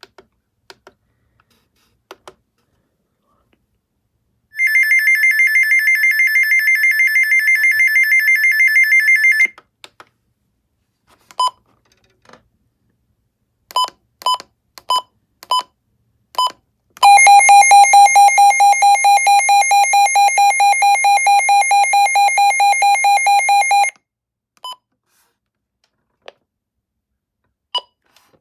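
Radio alarm sirens being tested one after another. First comes a high electronic tone pulsing rapidly for about five seconds; after several short beeps, a lower pulsing electronic tone sounds for about seven seconds. Small clicks and single beeps fall in the gaps.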